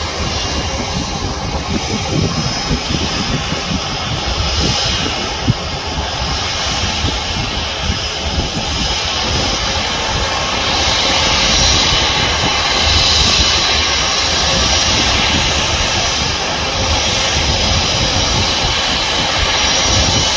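Airbus A320-232 jet airliner's IAE V2500 turbofan engines at takeoff power, a steady jet rumble and hiss. The sound grows louder and the high hiss strengthens from about halfway through as the aircraft rolls toward the listener.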